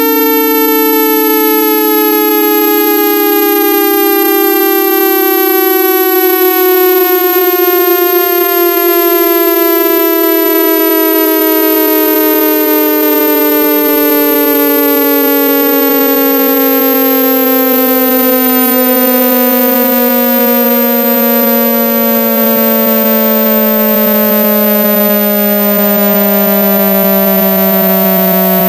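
Synthesized speaker-cleaning test tones: two buzzy tones rich in overtones glide slowly in opposite directions, one falling and one rising, crossing about ten seconds in, over a faint high whine.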